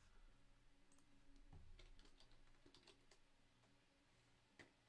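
Faint computer keyboard typing: a quick scatter of soft key clicks, then a single click near the end.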